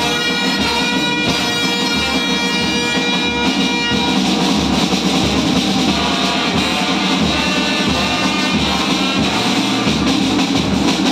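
Brass band playing: trumpets, trombones and tubas sounding held notes over a bass drum and side drum keeping a steady beat.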